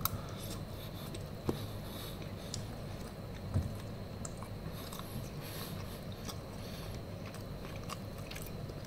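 A person quietly chewing a mouthful of babi guling with rice close to the microphone. A couple of small clicks come about a second and a half in and again near the middle.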